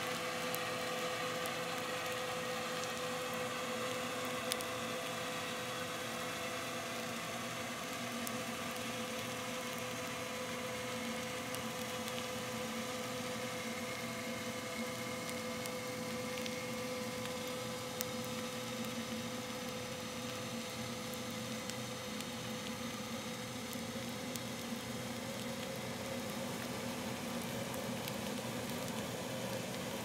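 Cruise ship MSC Grandiosa's propellers and machinery at slow speed, heard underwater through a hydrophone: a steady hum of several held tones, the strongest mid-pitched, over a hiss, with a few faint clicks.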